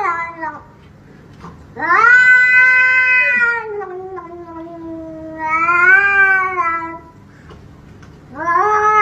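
A domestic cat yowling: long drawn-out meows, each one to two seconds long, rising and then sliding down in pitch, repeated every few seconds.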